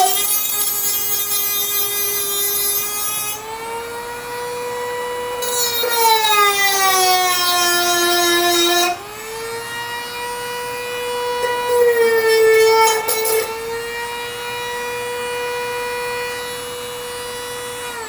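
Dremel rotary tool grinding rust out of rot holes in a car's body metal: a high steady whine whose pitch sags for a few seconds midway as the bit is pressed into the metal, then recovers. A harsh grinding hiss comes and goes three times as the bit bites.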